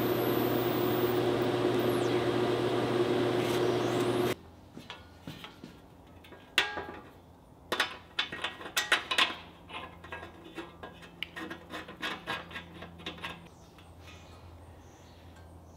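TIG welding arc buzzing steadily as a longer bolt is welded onto a threaded stud, cutting off suddenly about four seconds in. Then scattered light metal clicks and knocks as the band saw's sheet-metal wheel shield is handled and fitted back over the stud.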